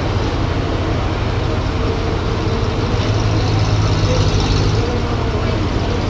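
Toyota forklift's engine running as it drives forward carrying a stack of wood slabs. The engine gets louder and higher for a couple of seconds around the middle, then drops back.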